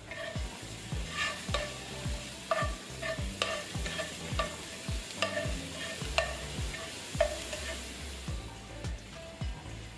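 Chopped garlic sizzling in hot oil in a nonstick frying pan, stirred with a metal slotted spatula that scrapes and clicks against the pan about a dozen times.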